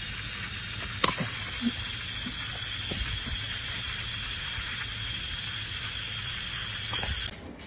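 Water spraying steadily from a pistol-grip garden hose nozzle in a wide shower: an even hiss, with one sharp click about a second in. The spray sound cuts off suddenly near the end.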